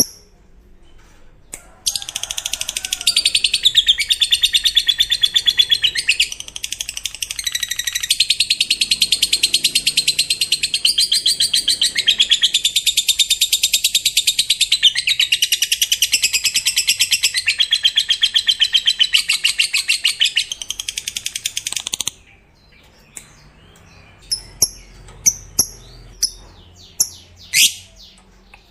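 Lovebird giving a long 'ngekek' song: a rapid, unbroken high chatter that starts about two seconds in, runs for about twenty seconds and stops abruptly, followed by a few short separate chirps near the end.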